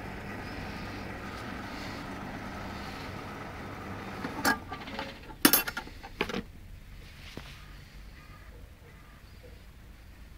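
A steady background hum, then three sharp knocks over about two seconds, starting around halfway through and loudest in the middle, as the upturned plastic bucket is moved off the grass.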